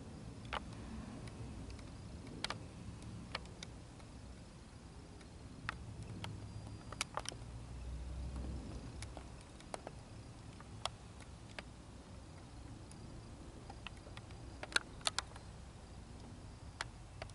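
Faint low rumble of a distant Boeing 787-9 jet airliner climbing away, with scattered sharp clicks from the camera being handled, loudest in a small cluster near the end.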